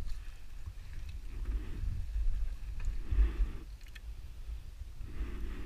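Water sloshing and splashing around a motorcycle in a flooded ditch, over a steady low rumble, with short swells about one and a half, three and five seconds in.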